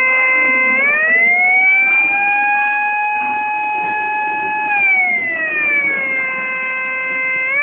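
Homemade electronic police siren circuit sounding through a large loudspeaker. A loud, buzzy pitched tone glides up about a second in, holds high for several seconds, glides back down, then begins rising again near the end.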